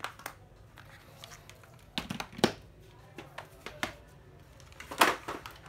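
Handling noise of cordless power tools being lifted off and set down on a cardboard-covered floor: scattered knocks and clicks, loudest about two and a half seconds in and again near five seconds.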